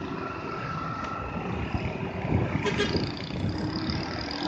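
Mixed traffic passing on a tight bend: the engines of an ambulance van, an SUV, motorcycles and a cargo truck. The engine noise grows a little louder about two seconds in.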